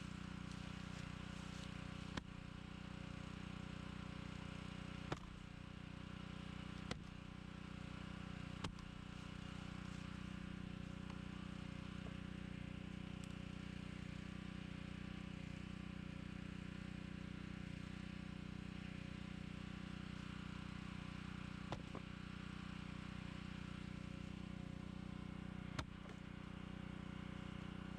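A small engine running steadily at one speed, with a few sharp clicks or knocks at irregular moments, the loudest about five seconds in and again near the end.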